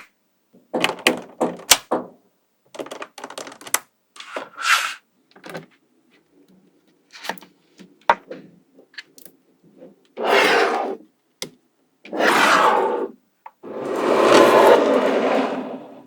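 Small magnetic balls clicking and snapping together as they are placed one by one, in scattered single clicks and quick clusters, then three longer rattling scrapes of about a second each near the end as a batch of balls is slid or rolled together.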